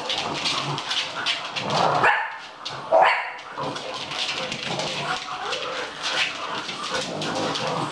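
English bulldog puppies barking as they tussle at play, with two louder barks about two and three seconds in. Under them runs a steady patter of quick clicks and scuffles from paws on a wooden floor.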